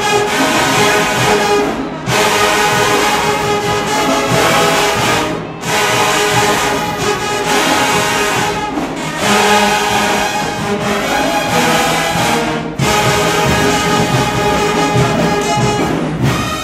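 HBCU marching band's brass section playing a loud tune in short phrases, with a brief break between phrases about every three to four seconds.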